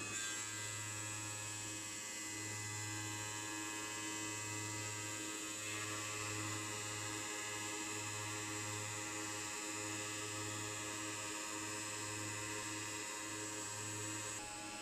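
Electric motors of a three-blade wet tile cutting machine running with a steady hum and a whine above it; the low hum swells and dips every second or so.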